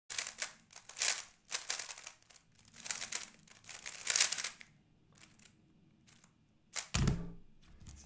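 Gan 11 M Pro speedcube being turned at speed: quick bursts of clicking and clacking turns, easing off after about four and a half seconds. About seven seconds in comes a low thump as hands come down on the stackmat timer pads to stop the solve.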